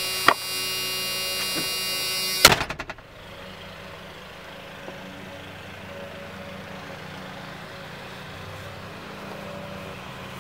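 The 1994 Ford F-150 cab's warning buzzer sounding steadily with the driver's door open. About two and a half seconds in, the door slams shut and the buzz stops, leaving a quieter low steady hum.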